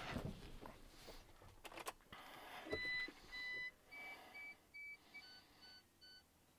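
A few clicks, then a series of short electronic beeps from the MAN lorry's dashboard warning buzzer as the ignition is switched on, stepping down in pitch partway through. The engine does not crank: the batteries are too flat to turn it over.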